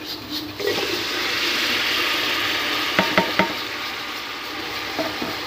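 Chopped tomatoes and green chillies hitting hot oil in a pot, setting off a frying sizzle about a second in that eases off toward the end. Around three seconds in, a few quick ringing metal clinks.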